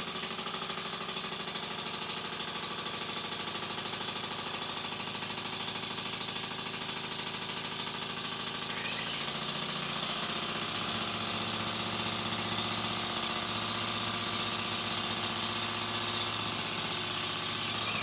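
Small single-cylinder Stuart S50 model steam engine running at full speed on compressed air: a fast, steady mechanical run of exhaust beats and moving parts. It grows somewhat louder about ten seconds in.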